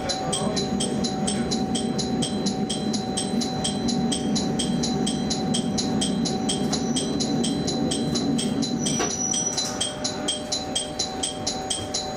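Diesel railcar rolling slowly into a station, a low rumble of running gear and engine, with a rapid, regular high ticking, about four to five beats a second, over a steady tone. A brief high squeal comes about nine seconds in.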